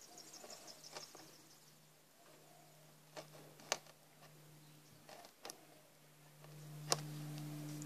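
Hand chisel cutting into softwood: a few scattered faint clicks and snaps as the edge bites and chips come away, the sharpest one near the end. A faint steady hum sits underneath and grows louder in the last second.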